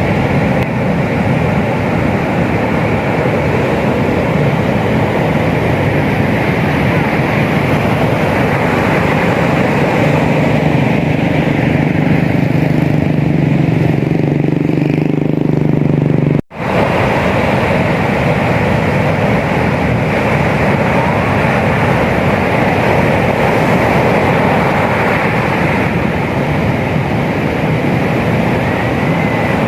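Steady rush of heavy surf. From about ten seconds in, the low hum of an engine rises under it. Just past halfway the sound drops out suddenly for a moment, then the surf noise carries on.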